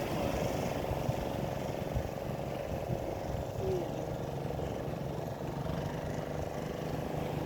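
A steady engine hum over a bed of outdoor noise.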